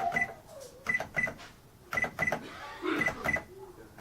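Casio SE-S3000 cash register keypad pressed in quick pairs, each press giving a click and a short high beep; four pairs about a second apart. The 8 key is being keyed in repeatedly to enter the register's reset code.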